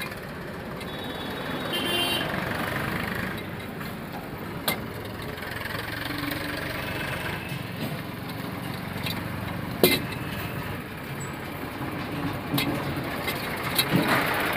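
An engine running steadily, with a few sharp metal clinks as a hydraulic bottle jack is set and worked under a tractor's axle.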